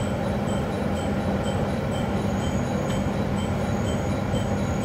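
Steady running noise heard inside a local train carriage as it rolls along, with a faint high-pitched pulse repeating about two or three times a second.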